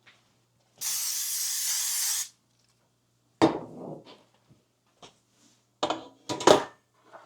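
Aerosol cooking spray (Pam) hissing out of the can in one burst of about a second and a half, greasing a springform pan. Then a few sharp knocks, one of them loud.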